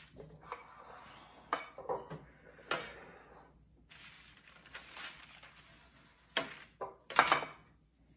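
A metal baking tray and glass baking dishes being shifted and set down on a countertop: a handful of separate knocks and clinks, with light rustling of the parchment paper between them.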